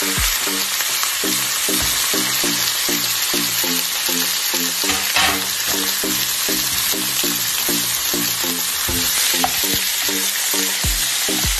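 Diced raw chicken breast sizzling in a hot frying pan with a steady, hissing fry; near the end a wooden spatula stirs the pieces. Background music with a regular beat runs underneath.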